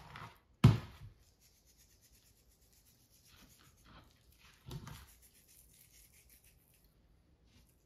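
Handling noises: a sharp knock about half a second in, soft rubbing a few seconds later, and a second, duller knock near the five-second mark.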